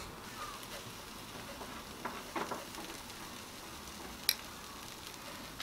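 Chicken sizzling steadily over hot charcoal on a barbecue grill, with a few light clicks of metal tongs against the grill and a sharper click a little after four seconds in.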